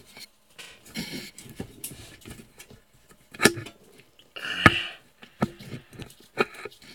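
Metal tools clinking and clattering as someone rummages through them by hand, with two sharper knocks, about three and a half and four and a half seconds in.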